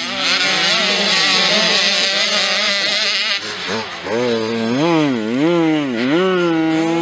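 Motocross bike engines running hard on the track, the pitch of the revs rising and falling again and again as riders open and close the throttle.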